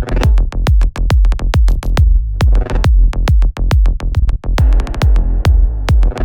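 Electronic dance music from a DJ mix: a fast, driving drum-machine kick over a deep bass, with short synth sounds between the beats.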